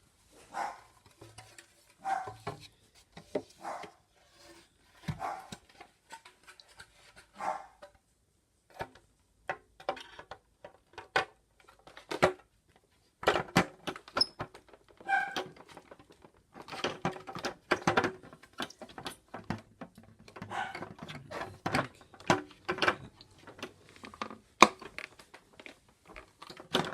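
Dogs barking on and off, short barks every second or so, mixed with sharp clicks and knocks of plastic parts being handled.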